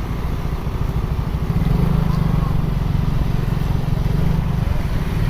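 Bus diesel engine running, a deep pulsing drone that swells for a few seconds in the middle.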